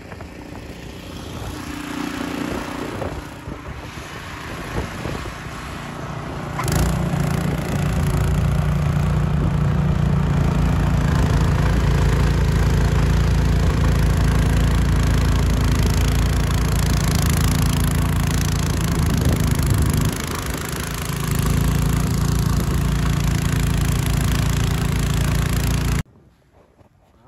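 Snowblower engine running steadily as it is pushed through deep snow on a sidewalk. It is quieter at first and grows louder about a quarter of the way in, dips briefly about three-quarters through, then cuts off abruptly near the end.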